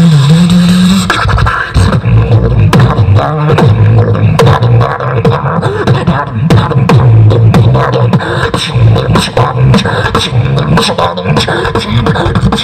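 Beatboxing into a handheld microphone, amplified through a PA: a hummed low bass line under fast, dense drum-like clicks and snare hits, with a wavering, rising bass tone in the first second.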